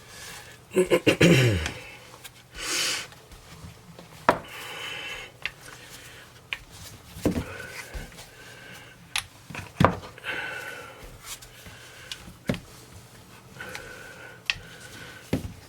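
Rolling pin working a ball of bread dough out on a cutting board: irregular knocks and clacks of the pin against the board, between stretches of rolling, rubbing noise.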